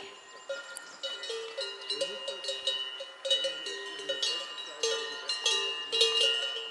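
Cowbells on a small herd of walking cows, clanking irregularly. Strokes of several bells at different pitches ring out and overlap.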